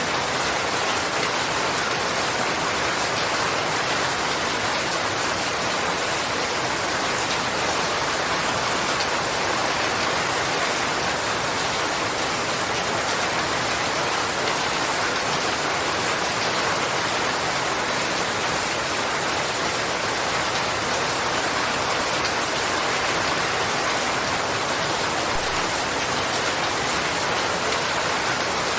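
Steady heavy rain, a dense even hiss of drops with no single drops standing out.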